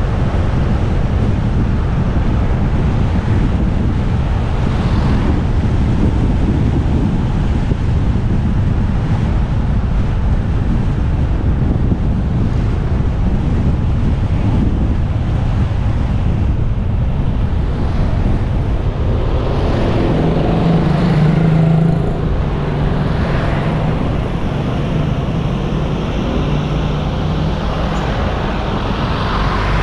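Wind rushing over the microphone and road noise while riding a motorcycle on a road, with the engine droning underneath. A steady low hum rises above the noise for several seconds from about twenty seconds in, and a few brief swells come and go as traffic passes.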